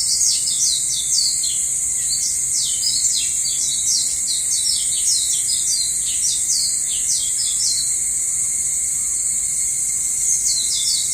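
Birds chirping in quick runs of short notes over a steady high-pitched insect drone. The chirping pauses for a couple of seconds near the end, then starts again.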